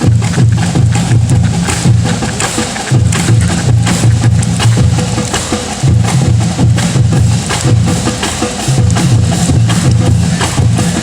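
Middle school band music with drums and a pulsing low part, over dense rapid wet clicking of ducks dabbling (shlorping) with their bills at the water's surface.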